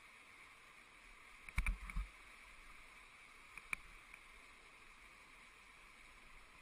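Steady rush of whitewater rapids, with a few sharp knocks about one and a half to two seconds in and a single knock near four seconds.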